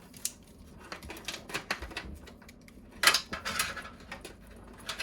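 Power supply cables being handled and pushed into a PC case: a run of small clicks and plastic-and-metal rattles, with a louder rustling scrape about three seconds in.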